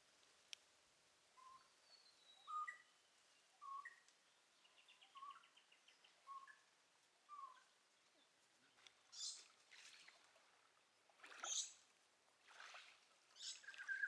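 Faint birdsong: a bird repeating short whistled notes about once a second, with a brief faint trill among them. In the last few seconds come several short, harsher, hissy sounds.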